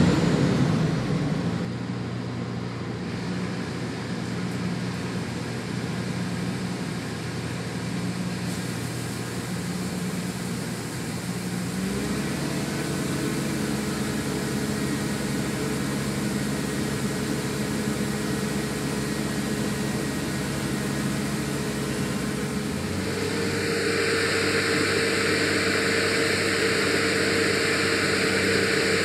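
Claas Lexion 570 TerraTrac combine harvester running steadily. Its engine note steps up about twelve seconds in and again near the end, when a loud hiss joins in.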